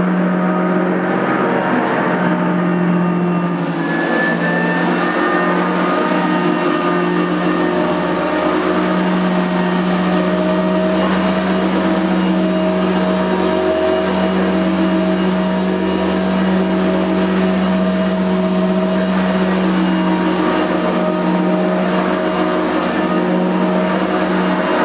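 Nilco 271 commercial upright vacuum cleaner running steadily, its motor giving a constant hum.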